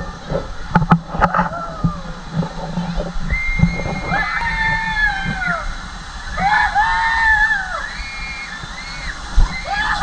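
Water rushing and sloshing as an inflatable tube slides down an enclosed water-slide tube, with riders screaming: long, high-pitched screams about four seconds in, again a little later, and once more near the end.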